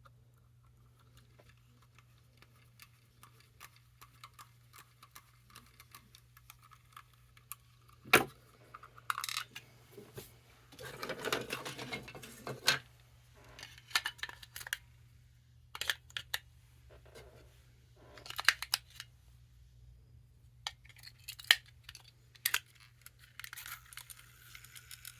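Scattered clicks, taps and light rattles of a Furby's small plastic parts being handled, with a rustling scrape in the middle. Near the end a small electric motor starts whirring steadily: the Furby's gearbox motor running.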